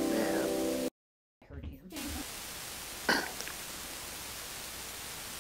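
The hymn's accompaniment holds its final chord, then cuts off abruptly about a second in. After a brief dead gap comes steady hiss from a microphone, with one short throat sound about three seconds in.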